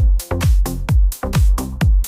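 Background music with a steady, fast beat of deep, thumping drum hits.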